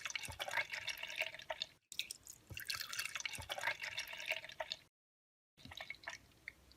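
Blended peanut butter and banana smoothie being poured into a glass: irregular dripping and splashing of thick liquid, broken by two abrupt cuts about two and five seconds in.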